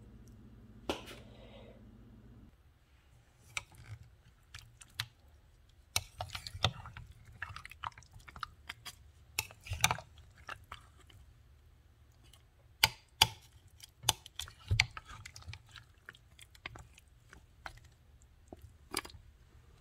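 A plastic spoon stirring and turning chicken feet in a slow cooker's crock: scattered wet squelches and short clicks of the spoon against the crock, with a sharp ringing clink about a second in.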